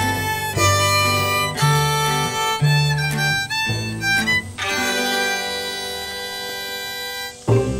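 Background fiddle music over a bass line, in an old-time country style; near the end one long note is held before the tune breaks and starts again.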